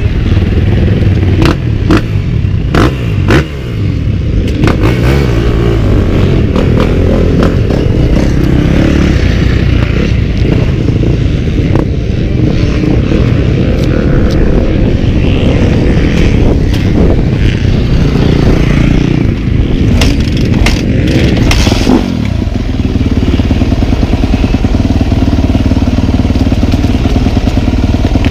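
Yamaha YZ250F's single-cylinder four-stroke engine idling steadily with the bike at rest. Sharp knocks and scrapes from handling against the chest-mounted camera come in the first few seconds and again around twenty seconds in.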